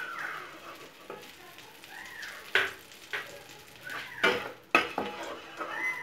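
Whole spices (bay leaf, cinnamon, cardamom) frying in melted butter in a metal pan, sizzling, while a wooden slotted spatula stirs and scrapes across the pan. Several sharp knocks of the spatula against the pan ring out, loudest about two and a half seconds in and again around four to five seconds in.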